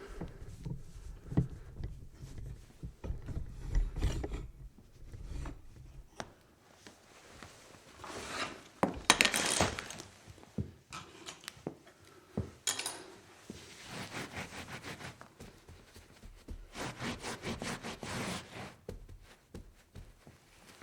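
Cleaning up a spill: a series of low knocks and handling thumps, then bursts of wiping and scrubbing against a surface, ending in a run of quick back-and-forth scrubbing strokes.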